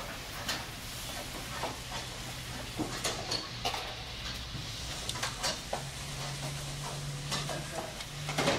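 Light, irregular taps and clicks as green chillies are dropped and handled among roasted chicken pieces in a large aluminium pot, over a steady low hum.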